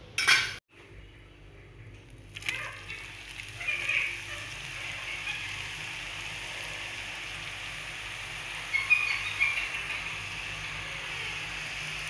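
Rice-flour ribbon pakoda deep-frying in hot oil, a steady sizzling and crackling that starts about two seconds in, with sharper spatters now and then. This is the vigorous sizzle of a fresh batch still boiling off its moisture. A brief loud noise comes right at the start, followed by a short gap.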